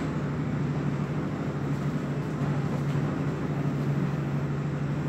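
Steady low background hum with an even hiss over it, unchanging throughout, with no distinct knocks or paper rustles.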